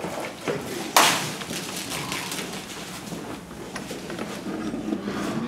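Plastic sheeting crackling and rustling irregularly as people move on it, with one loud, sharp smack about a second in.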